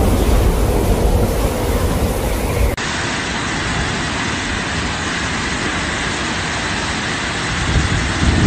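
Heavy rain pouring down in a steady hiss, with wind rumbling on the microphone. About three seconds in it changes abruptly to an even rain hiss with far less rumble.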